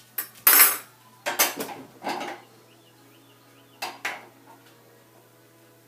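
Metal forks and spoons clinking and clattering against each other and the dishwasher rack as they are handled: a run of short clatters in the first couple of seconds, then two more clinks about four seconds in.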